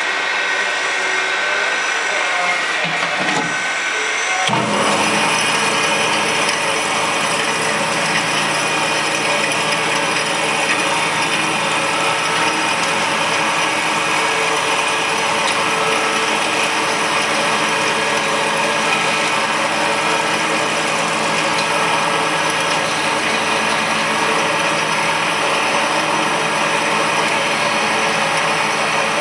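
Industrial mixer grinder machine running, a steady motor whine and churning hum. About four and a half seconds in its sound abruptly becomes fuller and slightly louder, then holds steady.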